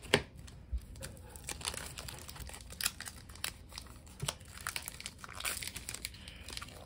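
Pokémon booster pack's foil wrapper crinkling and tearing as it is ripped open and handled, a string of irregular sharp crackles.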